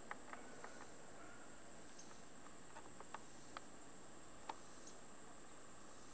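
Faint insects: a steady high hiss with scattered short chirps and ticks.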